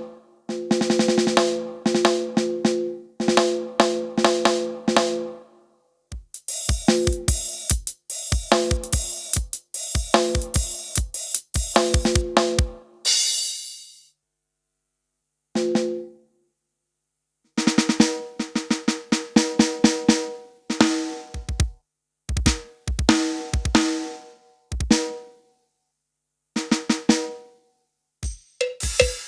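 Yamaha PSR-S770 arranger keyboard playing a drum-kit rhythm pattern with a held chord accompaniment. It plays in short phrases that stop and restart, with brief silences between them.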